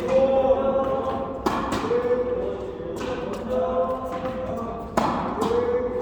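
Two sharp tennis racket strikes on the ball, about three and a half seconds apart, over music with singing.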